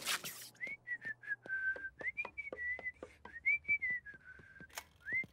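Someone whistling a tune: a single line of short notes that step and glide up and down, with a run of light clicks underneath at a quick, even pace.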